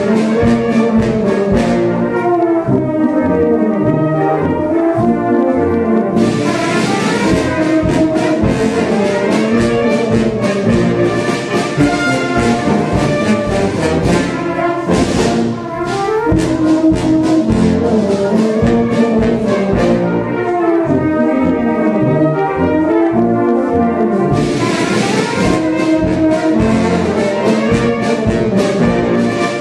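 Background music played by brass instruments, a steady melodic piece.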